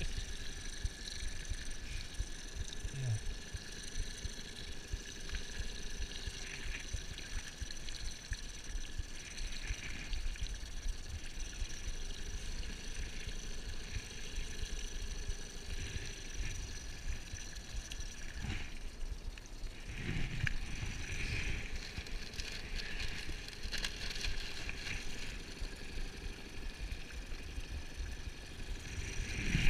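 Wind buffeting the microphone and water lapping at a small boat, over a faint steady whine. A few knocks and rustles of handling come about two-thirds of the way through.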